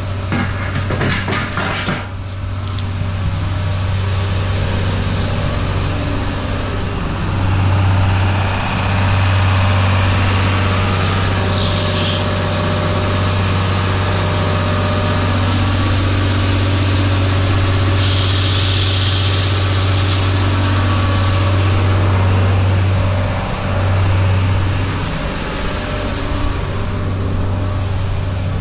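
Tractor engine idling steadily with a deep, even hum, swelling briefly twice, about seven seconds in and again near the end. A few light clicks of handling come in the first two seconds.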